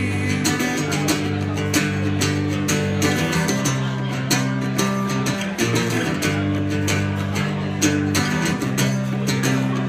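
Strummed guitar playing a chord progression between sung choruses, with a steady strumming rhythm.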